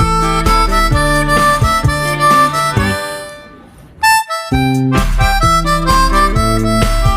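Background music with a steady bass line; it fades out about three seconds in and starts again about a second later.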